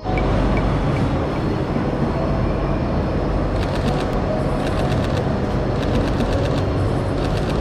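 Steady loud rumble and hiss of background noise, with short runs of quick clicks about four seconds in and near the end.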